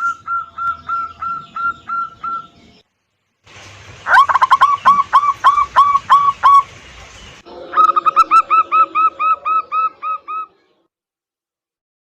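Zebra doves (local perkutut) cooing: three spliced runs of rapid, evenly repeated coo notes, about three to four a second, each cut off abruptly by a moment of silence, and falling silent near the end. A lure recording used to coax a caged perkutut into singing.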